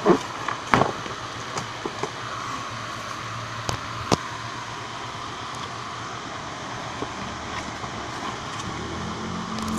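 Toy packaging being opened by hand: a few sharp clicks and crackles, the loudest within the first second and a pair around four seconds in, over a steady background hum.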